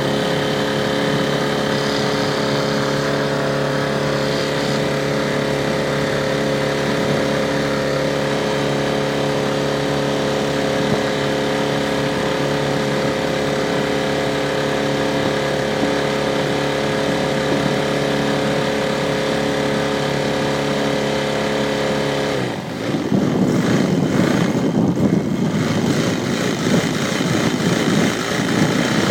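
A motorboat engine running at a steady speed, then about 22 seconds in it gives way to a louder, rougher, uneven engine sound, as if the throttle were opened.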